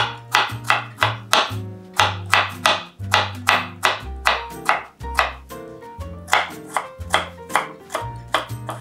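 Background music with a steady beat, about two to three strikes a second, over a stepping bass line.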